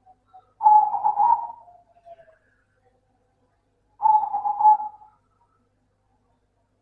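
Zebra dove (perkutut) cooing: two bursts of rapid, trilled coos about three seconds apart, each trailing off in a few fainter, lower notes.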